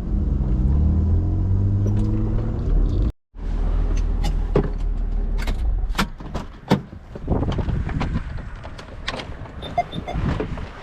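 BMW inline-six car engine running, its pitch dipping and rising with the revs for about three seconds. After an abrupt cut, a lower engine hum goes on under a string of sharp clicks and knocks.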